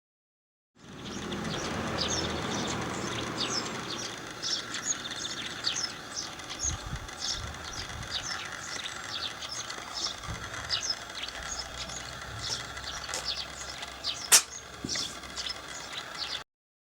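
Birds chirping steadily. Near the end, a single short, sharp sneeze from a cat is the loudest sound.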